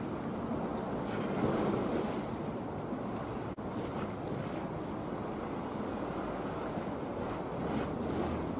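Wind buffeting the microphone over the steady rush of choppy sea water as a coastal cargo ship passes, with a split-second dropout about three and a half seconds in.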